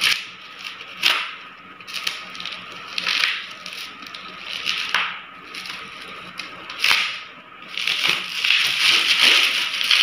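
Plastic packing, bubble wrap and a clear plastic bag, crinkling and rustling as a bottle is unwrapped by hand. It comes in irregular bursts with a few sharp crackles, then a longer stretch of rustling near the end.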